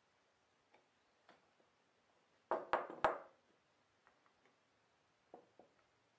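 Screwdriver and Corby bolt fittings clicking and knocking as the bolts are screwed tight through a knife's wooden handle scales: a few faint ticks, then three sharp clinks in quick succession about two and a half seconds in, and two softer ticks near the end.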